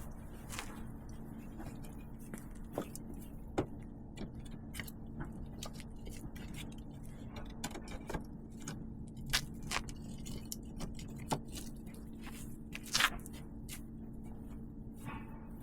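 Irregular light knocks and clicks, a few of them louder, over a faint steady hum.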